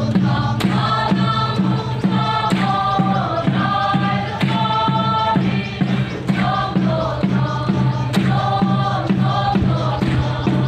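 A troupe of dancers chanting a traditional Naga song together in short, repeating phrases, with a steady low drone beneath.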